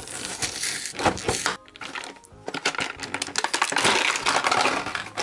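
Stiff plastic blister packaging crinkling and crackling and cardboard backing tearing as a toy is pulled out of its pack by hand. The crackles are irregular, pause briefly about two seconds in, then come thick and fast through the second half.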